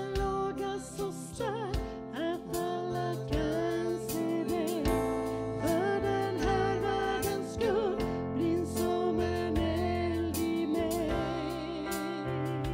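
Worship song: a solo voice singing a melody with vibrato over a band's sustained chords and regular drum beats.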